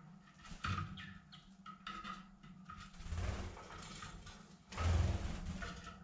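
Canaries moving about a wire flight cage: brief chirps and rustles as they hop on the perches, with two louder fluttering rustles about three and five seconds in.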